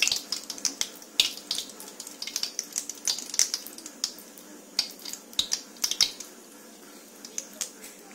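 Cooking oil heating up in a wok for deep-frying, crackling and popping with irregular sharp spits. The pops come thick at first and thin out after about six seconds.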